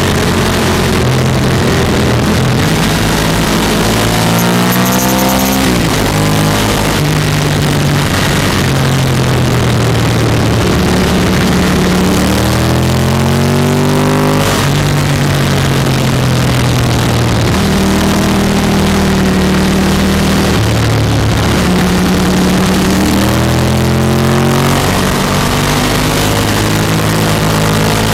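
Sport motorcycle engine heard from on board the bike, accelerating and shifting through the gears: its pitch climbs, drops at each shift and climbs again, several times. Steady wind rush runs under it.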